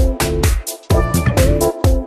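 Background music with a steady dance beat: punchy drum hits and repeating synth notes.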